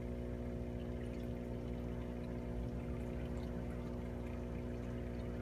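Reef aquarium's water circulation: water moving through the tank with a steady pump hum.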